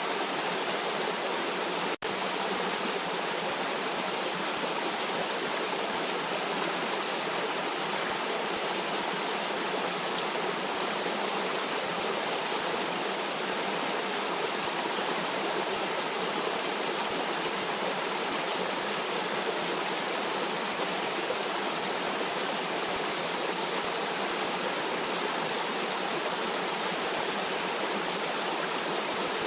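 Stream water flowing and rushing steadily, an even hiss-like wash with no breaks except a split-second dropout about two seconds in.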